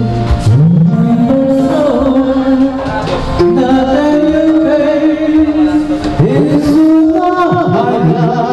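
A man singing karaoke into a microphone over a karaoke backing track, his voice sliding up into a held note about half a second in.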